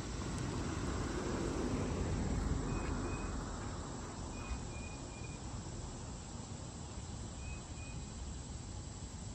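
Steady outdoor background noise that swells for the first few seconds and then settles, with faint short high chirps heard three times, in twos and threes.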